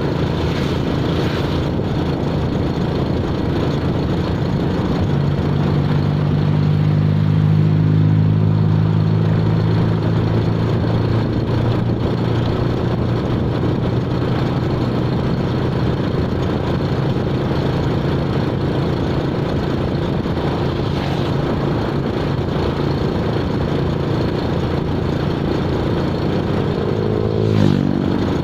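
A motor vehicle's engine running steadily, a little louder for several seconds early in the stretch, with a short sweep in pitch near the end.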